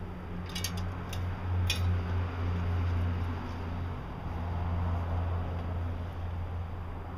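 Scissors snipping through plastic netting, three quick cuts about half a second apart, over a steady low rumble.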